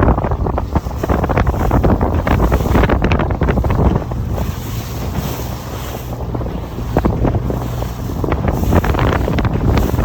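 Strong wind buffeting the microphone while waves splash and slap against a small sailing dinghy, with sharp splashes throughout.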